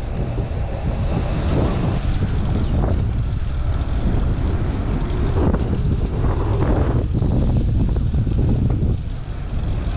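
Wind buffeting the microphone over a steady low rumble of passing traffic.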